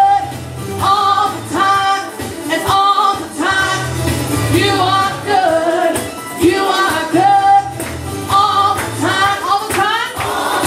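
A woman singing a worship song into a handheld microphone in phrases with long held notes, with instrumental accompaniment underneath.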